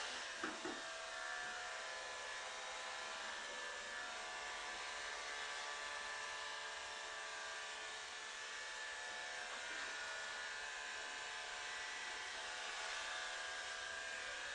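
Electric hair clippers running with a steady whine.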